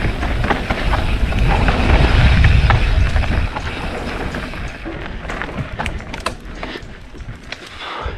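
Mountain bike riding down a dirt trail: wind buffets the microphone with a heavy rumble for about the first three and a half seconds. After that it eases into tyres crunching over dirt and the bike rattling, with many sharp clicks and knocks.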